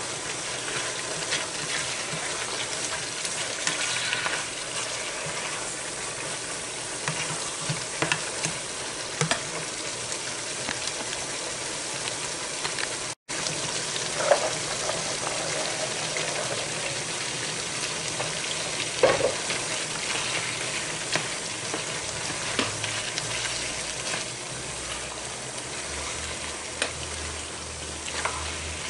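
Chicken pieces sizzling in a frying pan while a plastic spatula stirs and scrapes through them, with sharp knocks of the spatula against the pan now and then. The sound breaks off for an instant about halfway.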